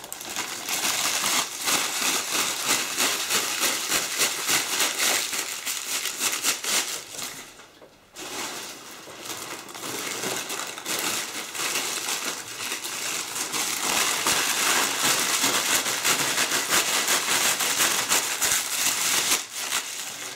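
A sheet of thin paper being crumpled by hand: a dense crackling rustle with a short lull about eight seconds in.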